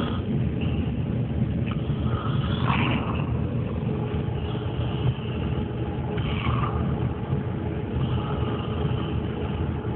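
A man snoring loudly over a steady low rumble.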